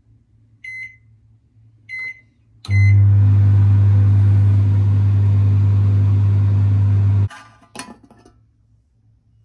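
Microwave oven keypad beeping three times, then the oven starting and running with a loud, steady hum for about four and a half seconds before it stops abruptly. A couple of light clicks follow near the end.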